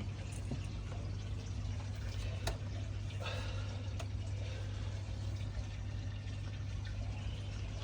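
Steady sound of running, pouring water under a low steady hum, with a few light clicks.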